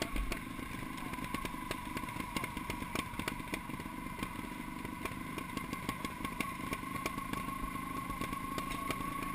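Trials motorcycle engine idling steadily at an even pitch, with a scatter of small clicks over it.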